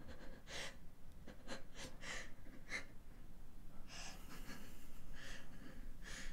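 A person breathing in short, uneven gasps, about one breath a second, quiet and shaky, in a state of distress.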